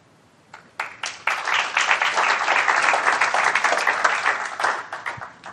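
Audience applauding. A few scattered claps come about half a second in, build to dense clapping, and die away near the end.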